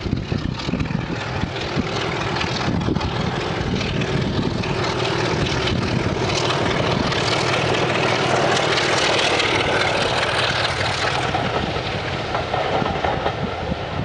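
Class 33 diesel locomotive's Sulzer engine working hard under power as it hauls its coaches past, with wheel and rail noise. The sound swells as the train draws level and eases a little as it moves away.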